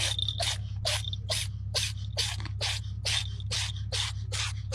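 A rhythmic swishing or scraping sound repeating about two and a half times a second, over a steady low hum.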